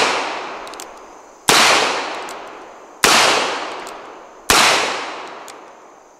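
Single-action revolver fired three times, about a second and a half apart, each shot followed by a long echoing decay. Faint clicks of the hammer being thumbed back sound between the shots.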